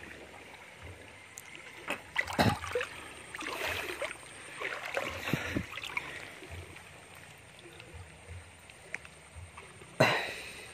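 Shallow river water splashing and sloshing in irregular bursts as it is stirred while looking for shrimp, over the steady run of the stream, with a louder splash near the end.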